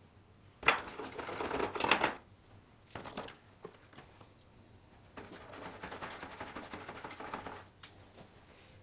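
Rapid mechanical clattering in three bursts: a loud one of about a second and a half near the start, a short one about three seconds in, and a longer, quieter one of about two seconds in the second half.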